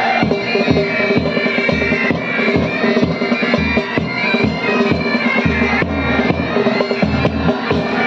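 Military pipe band playing: bagpipes sounding a steady drone under the melody, over repeated beats of the band's drums.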